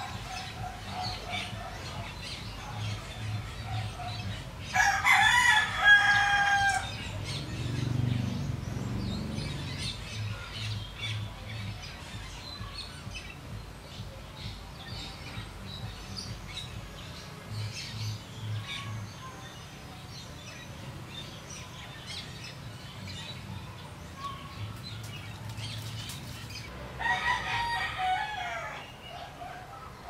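A rooster crows twice, once about five seconds in and again near the end. Faint chirps of small birds are scattered between the crows.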